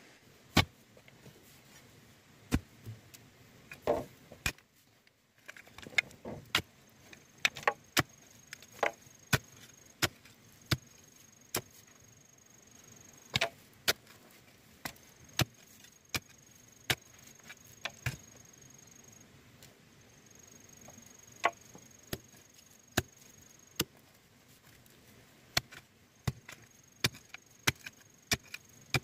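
Bamboo being chopped or struck with a hand tool: sharp single knocks at an uneven pace of about one or two a second, with short pauses between runs of blows.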